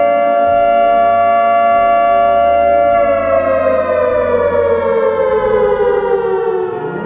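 Civil defence siren sounding a steady tone, then winding down with a slowly falling pitch from about three seconds in, and starting to rise again right at the end.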